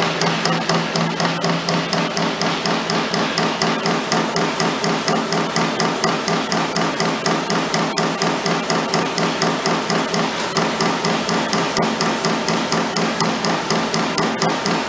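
Trumpf Trumatic 2020R CNC turret punch hitting sheet metal in a rapid, even run of strokes, several a second, as the carriage steps the sheet under the punch. A steady hum from the running machine lies underneath.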